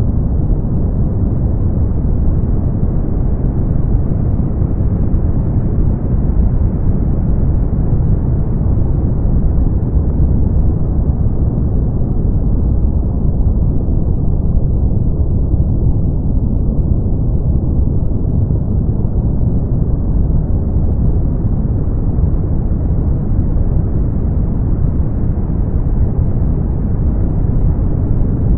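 Brown noise: a steady, deep rushing hiss with no separate events, heaviest in the bass and dull at the top. Its upper edge dims slightly for a few seconds around the middle, then brightens again.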